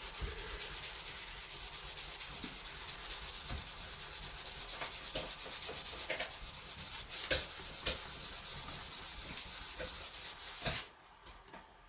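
Sandpaper scrubbing over a painted panel in quick, even back-and-forth strokes, scuffing the paint down toward the primer; it stops abruptly near the end.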